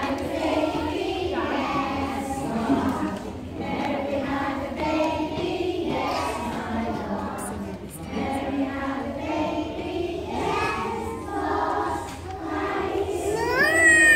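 A group of adults and young children singing a Christmas song together. Near the end, a loud high call slides up and back down over the singing.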